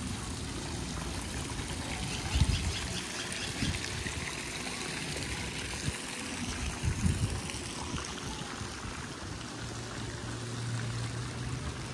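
Steady splashing of running water from a swimming pool's fountain jets, with a few low thumps.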